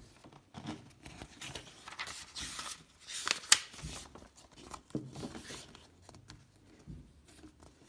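Paper pages of a picture book rustling and crinkling as they are handled and turned, with one sharper paper noise about three and a half seconds in.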